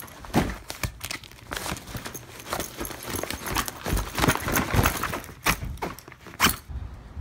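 A black fabric backpack being handled and packed: rustling cloth and papers with irregular knocks and clinks of its zipper pulls and buckles.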